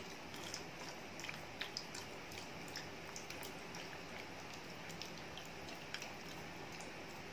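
Spatula stirring milk in a pan over a low gas flame, with faint scrapes and scattered small clicks against the pan over a steady low hiss, as a thin stream of cornflour-and-milk slurry is poured in.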